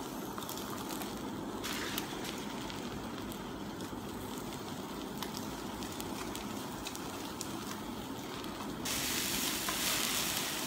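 Meat sizzling and crackling inside aluminium foil under a hot clothes iron: a steady sizzle with many small pops. About nine seconds in it turns suddenly louder and hissier.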